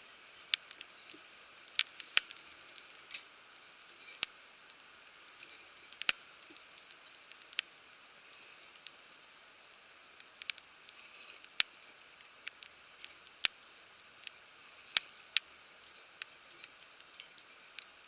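Wood fire in a campfire stand crackling, with irregular sharp pops over a faint steady hiss.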